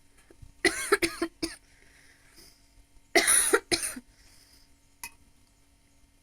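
A woman coughing in two short fits: three or four coughs about a second in, then two more about three seconds in.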